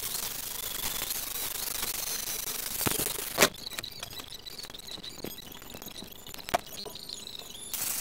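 A handheld power tool sanding the metal hub of an old wooden cart wheel with a steady rasping rub, which stops with a sharp knock about three and a half seconds in. A few handling clicks follow, then an angle grinder starts up just before the end.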